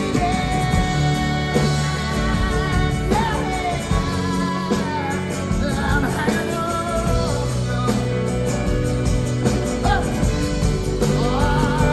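Live band playing a folk-rock song, with guitars and a voice singing over the full band.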